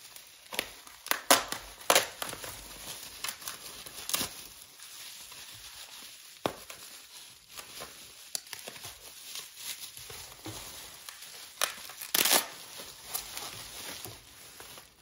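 Plastic bubble wrap crinkling and rustling as hands pull it open and unwrap it, with sharp crackles now and then, the loudest near the start and again near the end.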